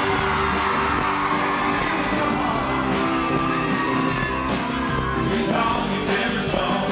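Live country-rock band playing on stage, a singer over acoustic guitars and a steady drum beat, with yells and whoops from the crowd.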